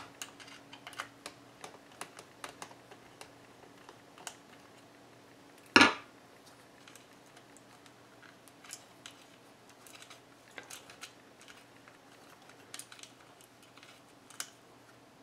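Light clicks and taps of a screwdriver working out the screws that hold the circuit board inside a Howard Leight by Honeywell radio earmuff's plastic cup, with one louder knock about six seconds in.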